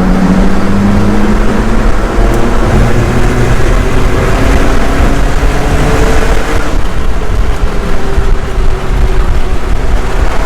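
Alfa Romeo 4C's turbocharged four-cylinder on its stock exhaust, accelerating hard through the gears. Its pitch climbs and drops back at upshifts about two and about seven seconds in.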